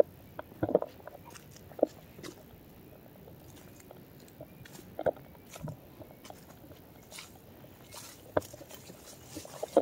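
Irregular crunching and scuffing footsteps on a mountain trail, with a few sharper knocks standing out.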